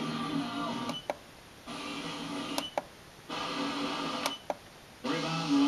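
AM radio being stepped across the dial on a digital tuner: short snatches of station audio broken three times by brief muted gaps, each starting with a sharp click as the tuner changes frequency.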